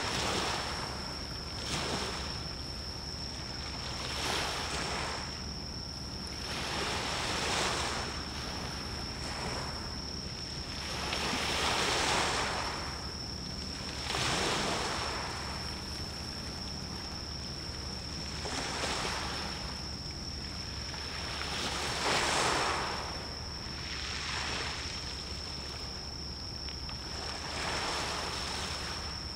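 Small waves washing in, each surge of splashing swelling and fading every two to five seconds. Underneath is a low steady hum, and a thin high-pitched tone runs throughout.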